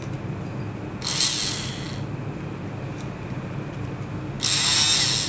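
The 12 V DC motor of an RWP 25DC submersible pump, fed straight from a battery, whirring briefly twice with its plastic impeller spinning in air: once about a second in for about a second, and again near the end. The motor runs, showing it works again after repair.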